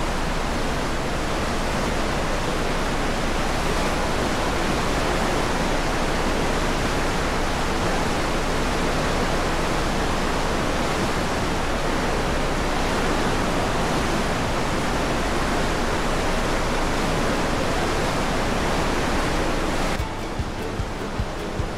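Steady loud rushing noise of a cruise ship's churning stern wake mixed with wind on the microphone, with a flickering low rumble. About twenty seconds in it drops to a quieter rush with a faint regular pulse.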